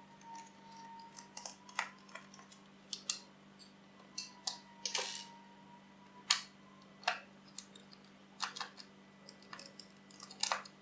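Light, irregular clicks and ticks of a small screwdriver working against the plastic case of a SkyDrop variometer as its two back screws are taken out.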